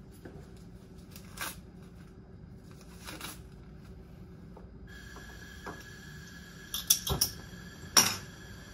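Small hard objects clicking and clattering on a lab bench as they are handled: a few light clicks, a quick run of clicks about seven seconds in, and a sharp clack about eight seconds in, over a steady room hum. A faint steady whine joins about five seconds in.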